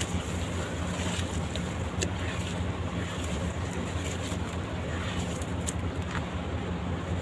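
Sand-cement blocks crumbling in water: a steady low wash with a few sharp crackles, about two seconds in and again near the end.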